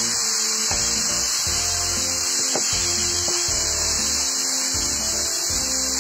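Chicken breasts with cherry tomatoes and olives sizzling steadily in a frying pan, with black tongs scraping the pan and knocking on it a few times as the food is stirred, over background music.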